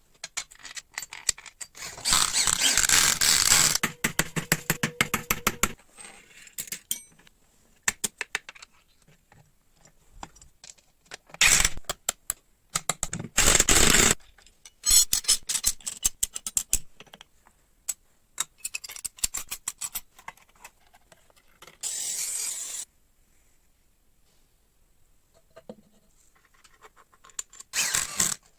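Workshop hand-tool work on motorcycle parts: scattered clicks and taps of metal, with several loud scraping bursts lasting a second or two each, the longest about two seconds in.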